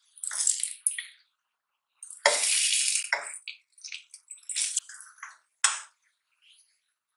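Butter sizzling in a non-stick ceramic pan as a slice of soaked brioche French toast is turned and pressed with a spatula. The sizzle comes in short bursts, with a louder one lasting about a second about two seconds in, and the spatula scrapes on the pan.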